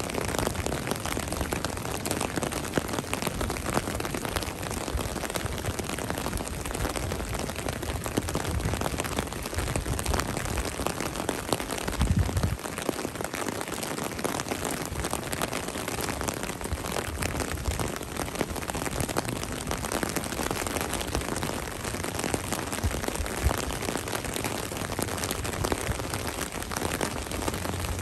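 Steady rain falling on a paved alley: an even hiss thick with the small ticks of individual drops. There is a brief low thud about halfway through.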